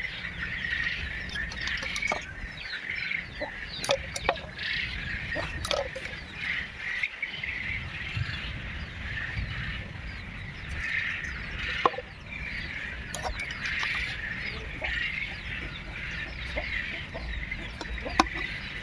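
Birds chirping and calling without a break, with scattered sharp knocks and clicks on top, the loudest about four seconds in, near the middle and near the end.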